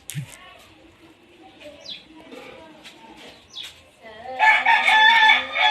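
A rooster crowing: one long, loud call that starts about four seconds in, with a few short bird chirps before it.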